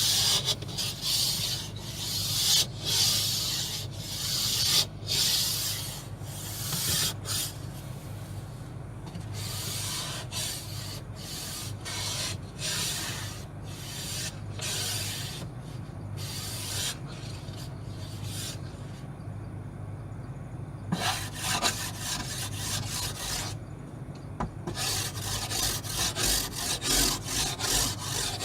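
Ice scraper scraping ice off a car in repeated rasping strokes. The strokes stop for about two seconds two-thirds of the way through, then start again at a quicker pace.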